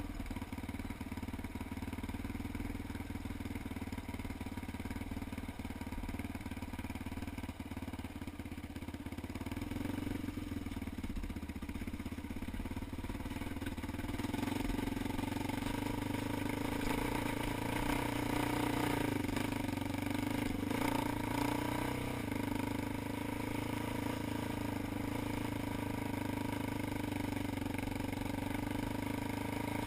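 ATV engine running steadily under way on a trail, getting somewhat louder about halfway through.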